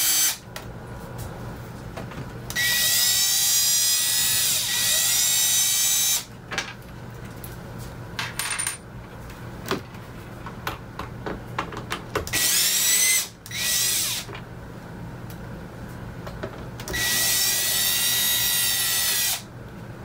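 Cordless drill backing screws out of an RV air conditioner's ceiling return grille. The motor whines in three runs: about three seconds early on, a short one near the middle, and about two seconds near the end. A steady low hum sits underneath, with light clicks between runs.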